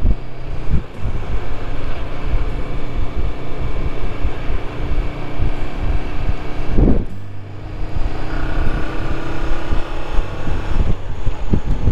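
Motorcycle engine running at road speed under heavy wind noise on the rider's microphone. The sound drops briefly about seven seconds in, then picks up again.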